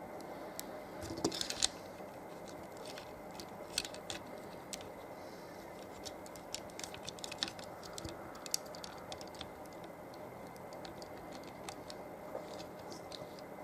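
Unboxing handling noise: scattered clicks, taps and scratchy rustles of plastic packaging and toy parts being handled, with a louder burst of rustling about a second in.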